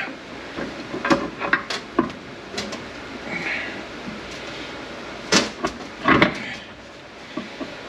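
Scattered metal knocks, clicks and scrapes as a heavy gear shaft assembly is worked out of an SM465 manual transmission case, with two louder clunks about five and a half and six seconds in.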